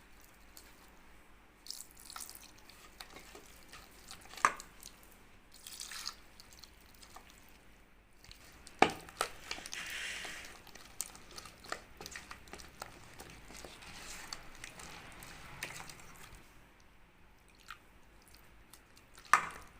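Thick flour batter being mixed in a bowl: irregular wet squishing and dripping, with a few sharp knocks, the loudest about four and a half seconds in, about nine seconds in and near the end.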